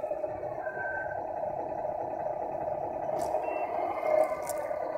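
Tamiya MFC-01 sound unit in a 1/14 RC Scania tractor truck playing its simulated diesel engine sound through a small speaker as the truck drives. A brief high beep comes about a second in.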